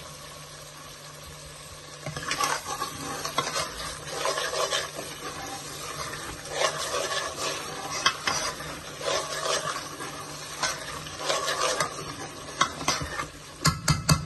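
Spices frying in a pan with a low sizzle, stirred and scraped round in repeated, irregular strokes that start about two seconds in. A few sharp knocks of the utensil on the pan near the end.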